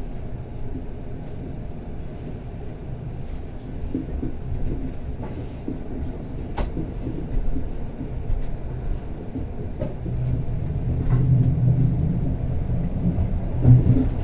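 Bernina Express passenger train running, heard from inside the carriage: a steady low rumble with occasional sharp clicks and knocks. It grows louder about ten seconds in.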